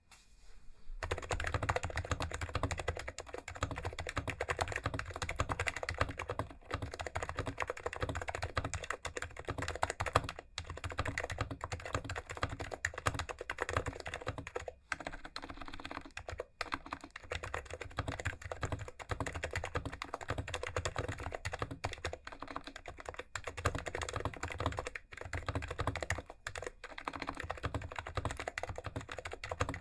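Continuous typing on a PFU/Fujitsu HHKB Classic keyboard with Topre electrostatic capacitive switches (sliders lubed with 205 grease, fitted with KBDFans rings) and stock PBT keycaps: a dense, steady run of keystrokes. It starts about a second in and breaks off for a moment a few times.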